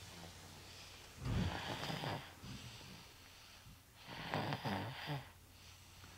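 A sleeper snoring: two snores about a second long each, roughly three seconds apart, with quiet breathing between them.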